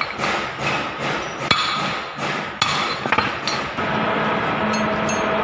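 Rapid hammer strikes on metal, about two to three a second, with a few sharper clinks among them, during front-axle oil-seal work on a tractor. About three-quarters of the way in the blows give way to a steady machine hum.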